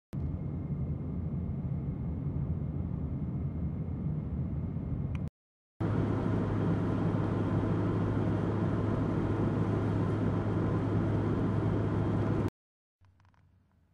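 Car driving, engine and tyre noise heard from inside the cabin, broken by two brief silent cuts. In the tunnel the noise is louder, with a steady low hum, and after a final cut near the end only faint noise remains.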